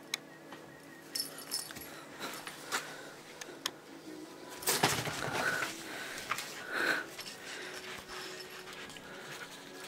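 A Scottish straight kitten playing with a wand toy: scattered light taps, rustles and small jingles, with a louder rustling scuffle about five seconds in and a shorter one near seven seconds.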